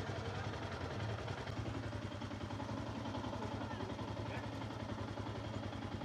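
An engine idling steadily, a fast even low pulse.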